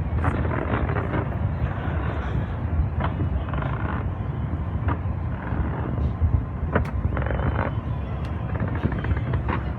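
Steady low outdoor rumble of a large crowd's din, with a few voices and several sharp clicks.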